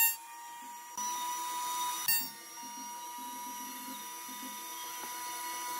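Router in a router table spinning freely without cutting, a steady high whine. A short knock comes about two seconds in.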